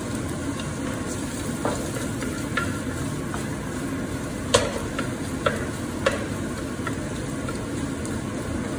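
Egg, prawns, bacon and garlic sizzling steadily in hot oil in a pan on a gas burner while being stir-fried with a wooden spatula and tossed. A few sharp knocks of spatula and pan, the loudest about halfway through.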